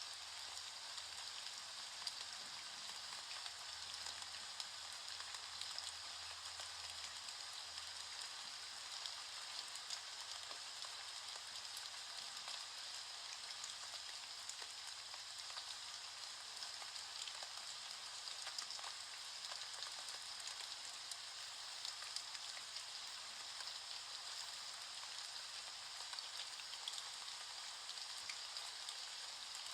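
Steady rain falling: a dense, even hiss of drops with many faint ticks, unchanging throughout.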